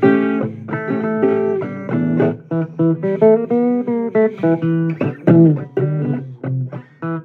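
Blues music: an instrumental guitar passage of picked, plucked notes in a steady run, between sung verses.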